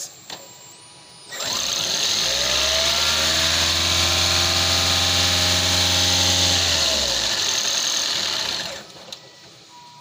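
Toyota Aqua (Prius C) hybrid's 1.5-litre four-cylinder petrol engine started by pressing the accelerator: it comes in about a second in, climbs to a steady speed and holds it, then winds down and shuts off near the end. This is the test run after the intake was replaced to cure the lean condition and rough idle.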